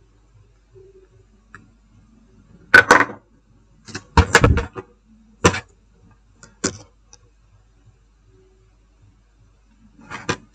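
Tools and small parts being handled on a repair bench: a handful of short, sharp clicks and clattering knocks, the loudest about three and four seconds in, then a few lighter ticks.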